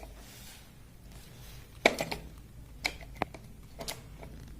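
A few light plastic clicks and knocks as a mobile phone charger's two-pin plug is handled and pushed into a wall socket, with no hissing from the plug.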